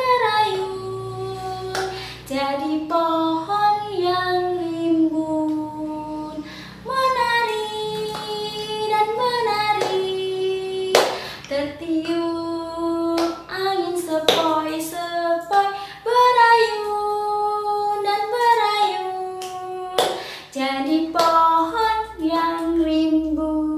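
A woman singing an Indonesian children's song alone in held, sliding notes, with a few sharp hand claps between lines.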